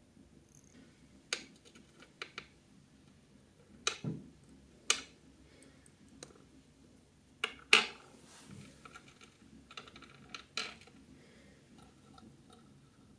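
Uncorking a miniature glass wine bottle with a tiny pocket-knife corkscrew: a scattering of small, sharp clicks and taps of metal, cork and glass in the fingers, the loudest click a little past halfway.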